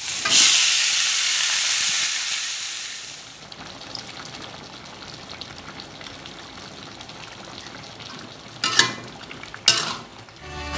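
Spice paste sizzling loudly in hot oil in a wok for the first few seconds, then dying down to a quieter simmer of the broth with light stirring. Two short, louder scrapes of the spatula against the wok come near the end.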